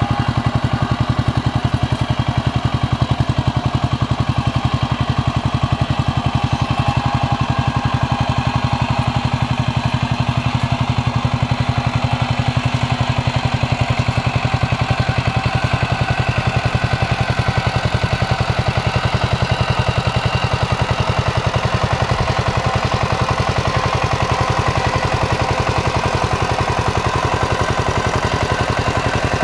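Kamco power tiller's single-cylinder diesel engine running steadily under load, with a fast, even beat of firing strokes, as its cage wheels and rotary tiller churn through wet paddy mud.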